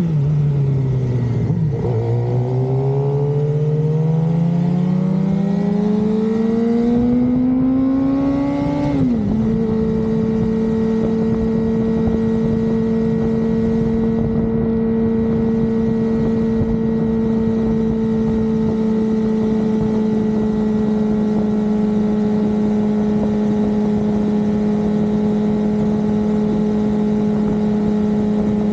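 2023 Suzuki GSX-R600's inline-four engine pulling through a gear, its pitch rising steadily for several seconds, then dropping sharply at an upshift about nine seconds in and holding steady as the bike cruises. Wind rushes over the microphone throughout.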